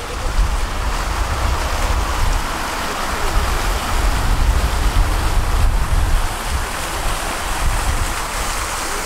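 Tram running along the track: a steady low rumble under an even hiss of wheels rolling on the rails.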